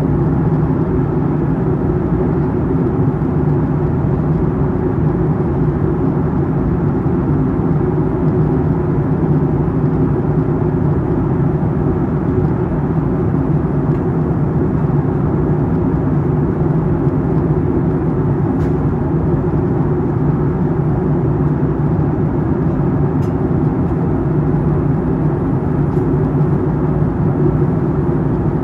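Steady roar of a Boeing 757-200 airliner in flight, heard inside the passenger cabin: jet engine and airflow noise, a deep, even rumble that does not change in level.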